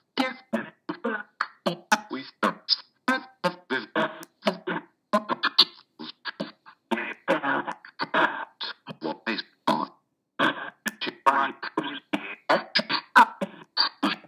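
Echovox ghost-box audio bank files played back one after another in random order: a rapid string of clipped voice fragments, syllables and snippets of speech a fraction of a second each, chopped off abruptly at about four or five a second.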